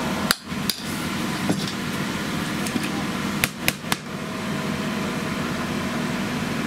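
A steady mechanical hum with a constant low drone, broken by sharp clicks: two about half a second in, where the sound briefly drops out, and three quick ones around three and a half to four seconds in.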